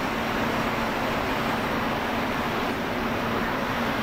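Steady industrial background roar of ventilation and machinery, with a constant low hum underneath.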